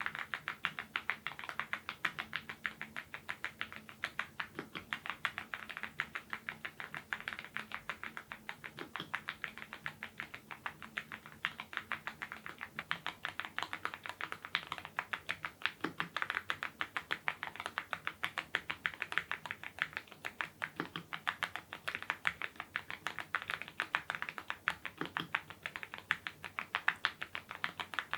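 Fast, continuous typing on a YUNZII IF99 full-size mechanical keyboard fitted with lubed Gateron Ink Red linear switches: a rapid stream of key clacks.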